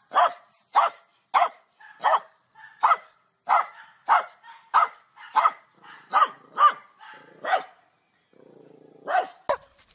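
Hairless dog barking in a steady run of sharp barks, about one and a half a second, then a short pause and two more barks near the end.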